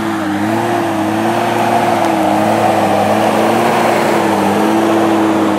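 Off-road Jeep Cherokee XJ's engine held at high revs under load as it climbs a muddy slope, its pitch wavering slightly.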